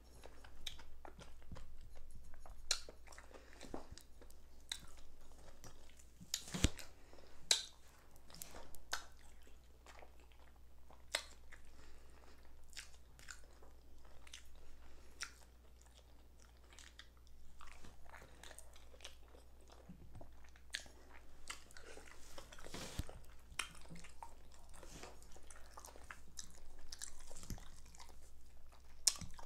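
Close-miked chewing and mouth sounds of a person eating fried liver with onions and mashed potatoes, with irregular sharp clicks, over a steady low hum.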